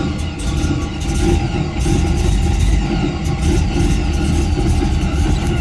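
Vehicle engine idling roughly, running unevenly throughout: the rough-idle fault the owner is showing.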